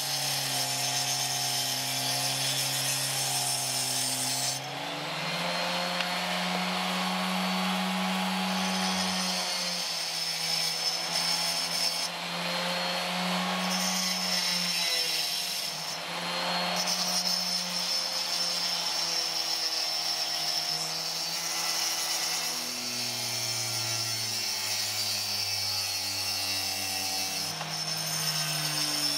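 Dremel-type rotary tool with a diamond cutting disc cutting Welsh slate under a trickle of water: a steady motor whine over the high gritty hiss of the cut, the whine shifting in pitch a few times as the disc works.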